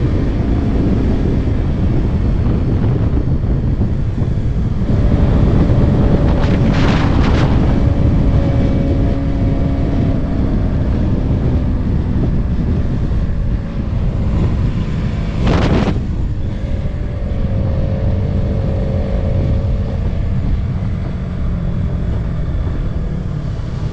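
Heavy wind rushing over the microphone on a motorcycle at highway speed, over the faint steady hum of the engine cruising. Two brief rushes of louder noise stand out, about a third of the way in and again past the middle.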